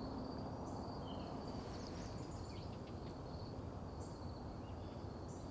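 Faint woodland ambience: a steady high-pitched insect trill, with a few brief bird chirps over it.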